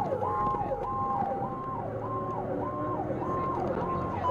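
Fire apparatus siren in a fast yelp, its pitch sweeping up and down about one and a half times a second, with a second siren tone slowly falling in pitch during the first second or so. The truck's engine runs underneath.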